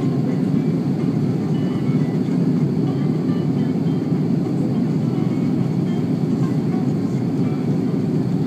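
Steady rushing cabin noise of an Airbus A330-300 airliner in flight, its engines and airflow heard from a window seat inside the cabin, even and unchanging.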